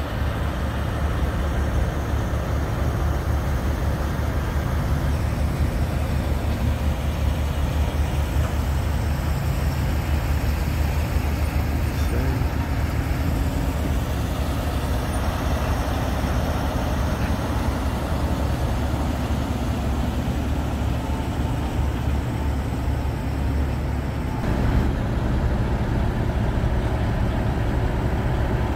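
Diesel engine of a Peterbilt semi-truck running with a low, steady rumble as the rig rolls slowly past. About 24 seconds in, the sound changes to the steady idle of a parked Kenworth truck's diesel engine.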